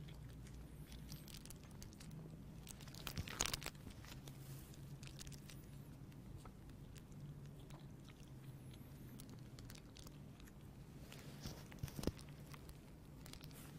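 Quiet room tone with a steady low hum and a few scattered clicks and rustles, the loudest about three and a half seconds in and again near the end.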